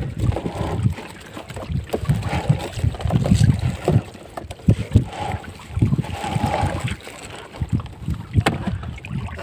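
Water sloshing and mesh netting rubbing as a catch of small fish is scooped out of a bag net with a hand scoop net. Close to the microphone there are uneven handling rumbles and knocks, with a sharp knock near the end.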